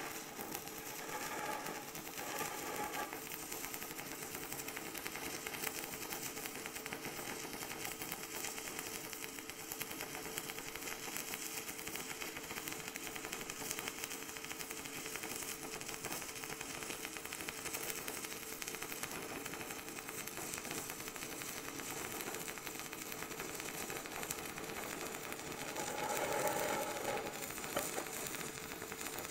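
Stick-welding arc of a nickel-55 (ENiFe-CI) cast iron electrode crackling steadily as one continuous bead is run across a cast iron exhaust manifold. It grows briefly louder near the end, then cuts off suddenly as the arc is broken.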